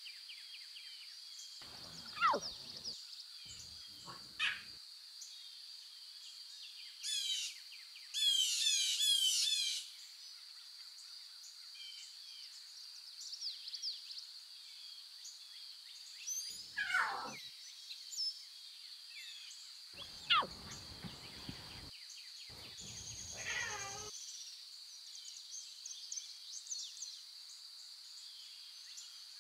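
Lion cubs mewing: about five short calls, each falling in pitch, over a steady high-pitched drone, with a burst of bird chirping partway through.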